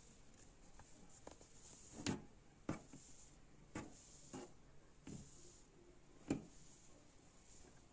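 Faint handling noise from hands arranging a crocheted doll's curly yarn hair: soft rustling with about six short clicks and taps against the table, the loudest about two and six seconds in.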